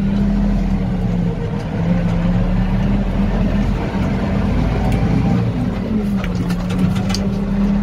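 SAME Laser 150 tractor's diesel engine running steadily, heard from inside the cab. Its pitch wavers up a little around the middle, then settles back.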